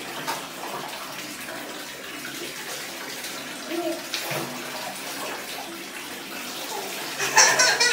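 Water running into a bathtub from the tap, with light splashing as a toddler's hair is washed. A young child's voice comes in near the end.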